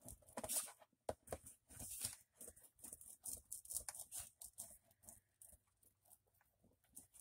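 Faint, quick, irregular rubbing and scraping strokes of a burnishing tool pressed over paper freshly glued onto thin cardboard, smoothing it down so the paper, glue and card bond.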